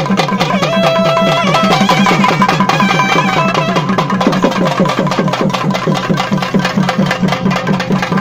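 Naiyandi melam folk band playing: fast, driving drumming on barrel drums. Over the first few seconds a wind instrument plays a melody.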